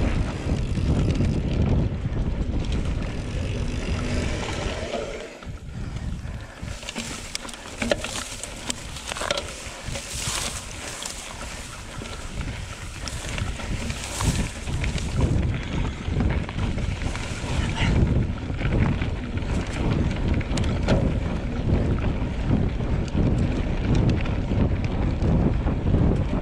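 Wind buffeting the microphone: an irregular low rush of noise, with a brighter hiss for several seconds in the middle.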